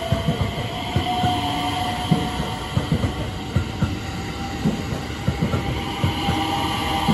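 JR West 321 series electric multiple unit running past along the platform: irregular wheel knocks and clatter on the track, with a faint thin whine above.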